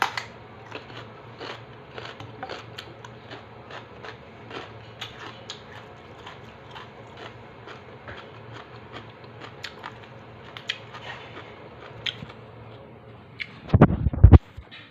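Close-up chewing and biting of crispy chicharon: a steady run of small crunches and crackles. Just before the end come a few loud, deep thumps.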